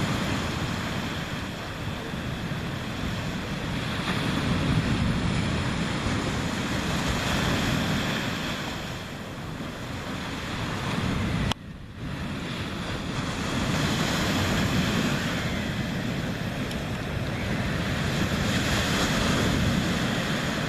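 Sea waves washing in and out, swelling and easing every few seconds, with wind buffeting the microphone. The sound drops out for a moment about halfway through.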